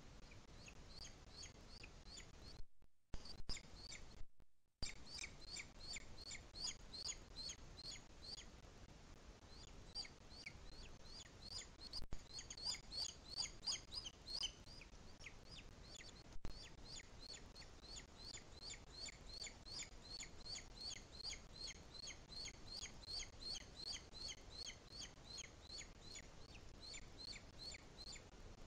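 Booted eagle chick calling for food: a rapid series of high, thin, downward-slurred chirps, a few each second, over faint hiss. The sound cuts out completely twice, briefly, about three and four and a half seconds in.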